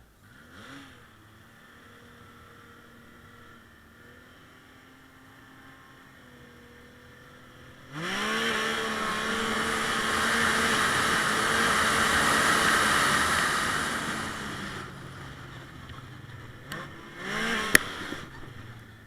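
Arctic Cat M7000 snowmobile engine idling low and steady. About eight seconds in it revs up suddenly and runs loud for several seconds, then fades away. A short rev with a sharp click comes near the end.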